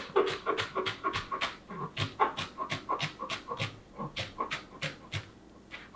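Chef's knife rapidly chopping fresh parsley on a cutting board: quick even blade strokes against the board, about four to five a second, stopping briefly near the end.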